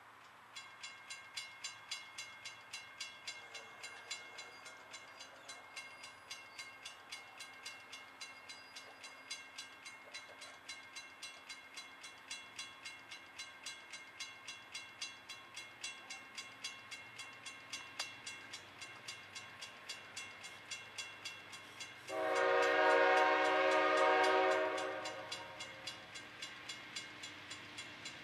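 Grade-crossing warning bell ringing in rapid, even strikes as a freight train approaches. About three-quarters of the way through, the diesel locomotive's air horn sounds one long blast, a chord of several tones, for the crossing.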